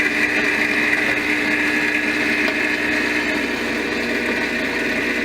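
Protea Romanza espresso machine's pump running while pulling a shot: a really loud, steady buzzing rattle, with a steady hum that drops out about three and a half seconds in.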